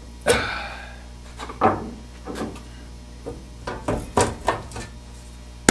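Steel top cover of a GE MASTR II VHF radio being lifted off its chassis: a sharp metal clank that rings for about a second, followed by several lighter knocks as the cover comes away.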